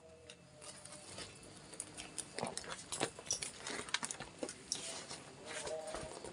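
Handbags being handled: irregular light rustling and small clicks as a bag is turned over and shifted in the hands.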